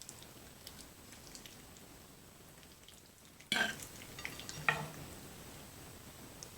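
Close-miked eating sounds of creamy fettuccine alfredo: faint small wet clicks, then a sudden loud wet noise about three and a half seconds in and another sharp one about a second later.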